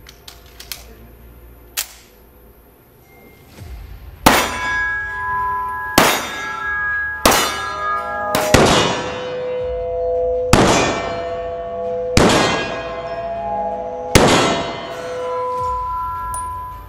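A couple of small clicks as a pistol is readied, then seven pistol shots a second or two apart, each followed by a clanging metallic ring that lasts a second or more, in the echo of an indoor range.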